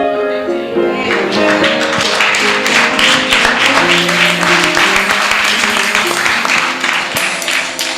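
Congregation applauding over instrumental music. The clapping starts about a second in and stops near the end, while the music's notes play on underneath.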